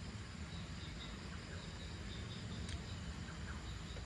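Outdoor dusk ambience: a steady low rumble, with faint, scattered insect chirps above it and one brief click.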